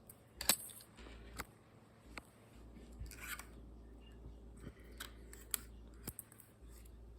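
Irregular sharp plastic clicks and snaps, about ten over several seconds with one short scrape, from a 3D-printed plastic pistol being handled and worked, over a faint low hum.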